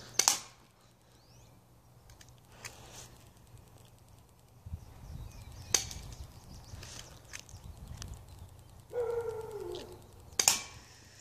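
Airsoft pistol firing single sharp cracks every few seconds, the loudest a quick double shot right at the start. Near the end a short falling call from an animal or bird sounds briefly.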